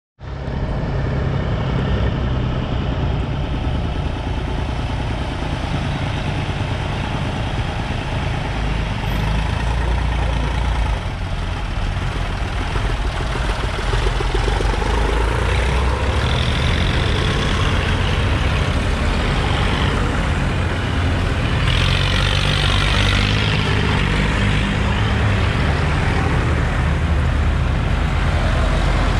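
A line of vintage tractors, among them a red Massey Ferguson and a blue Fordson, driving past one after another with their engines running steadily.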